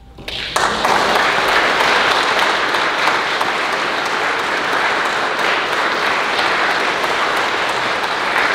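Audience applauding. The clapping breaks out about half a second in and keeps up steadily.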